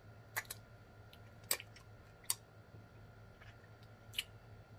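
Close-miked eating sounds: scattered wet lip smacks and mouth clicks, about five sharp ones spread out, as fried chicken is eaten and sauce is licked from the fingers.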